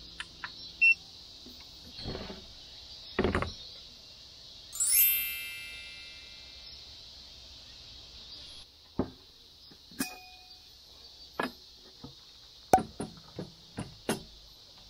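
Knocks and clinks of coffee utensils being handled, with one ringing ding about five seconds in that fades over a second or so. A steady high hiss runs underneath.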